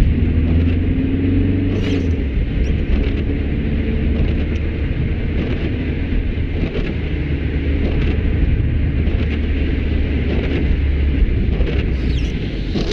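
A car driving on a wet road, heard from inside the cabin: a steady low rumble of engine and tyres, with faint scattered ticks over it.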